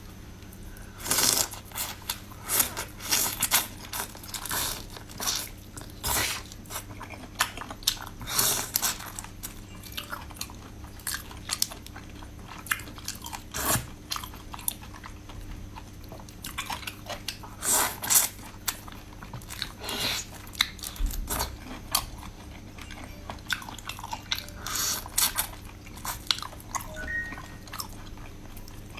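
Close-miked eating sounds: crunchy bites and chewing, with irregular sharp crunches about every second or two.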